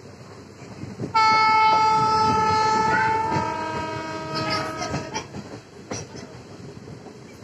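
Train locomotive horn sounding one long blast that starts suddenly about a second in and fades away over about four seconds. Under it runs the steady clatter of the coach wheels over the rail joints.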